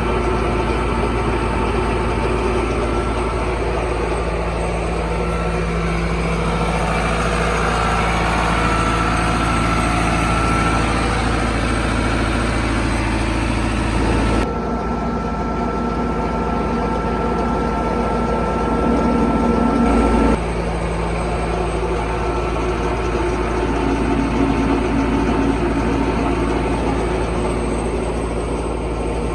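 Engine of a brick plant's mud-making machine running steadily, with a few steady tones over its low drone. The sound changes suddenly about halfway through and again a few seconds later.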